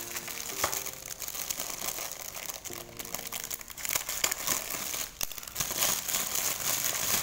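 Clear plastic wrapping crinkling and rustling as it is pulled and torn off a cardboard product box by hand, in a continuous irregular crackle.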